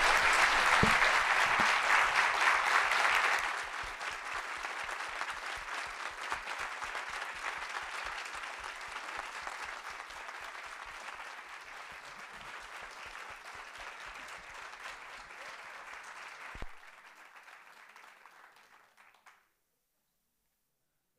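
Audience applauding in an auditorium. The clapping is loud at first, drops sharply in level after about three seconds, then keeps fading, with one soft thump shortly before it dies out to silence near the end.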